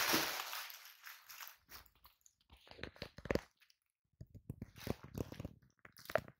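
A crinkly fabric cat tunnel rustling and crackling as a cat pushes and wriggles its way inside, in irregular bursts with short pauses, the loudest burst right at the start.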